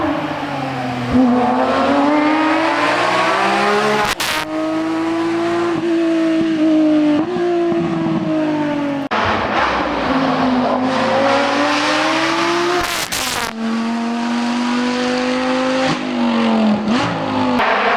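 Hill-climb race car engine pulling hard through the gears. The pitch rises, then drops sharply at a gear change about four seconds in and again near thirteen seconds, each shift marked by a short crack.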